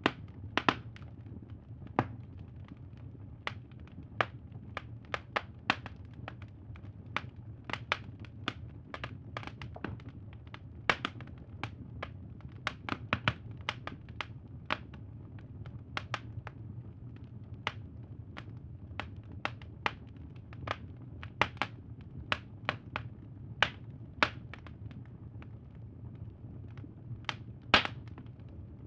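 Wood fire crackling: irregular sharp pops, about one or two a second, over a steady low rumble.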